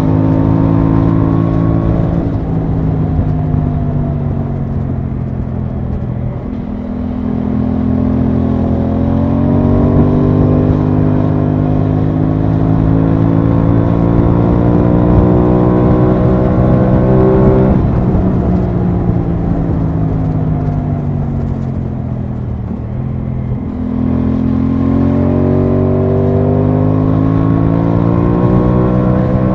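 Aprilia Tuono 660 parallel-twin engine under way, heard from the rider's seat. Its pitch climbs steadily as the bike accelerates, drops off sharply a little past halfway and falls as the bike slows, then climbs again near the end.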